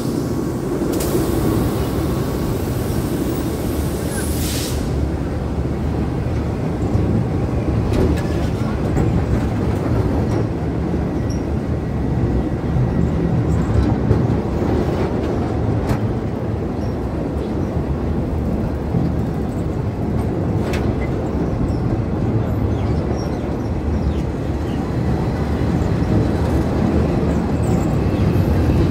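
Train running, a steady low rumble with a few light clicks.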